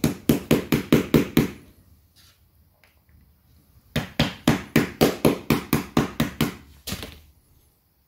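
Rubber mallet tapping a 3D-printed plastic gear core on a wooden dowel, in quick light taps about five or six a second: a run at the start, a pause of about two seconds, then a second run and one last tap. The taps are meant to break the core's print-in-place gears free.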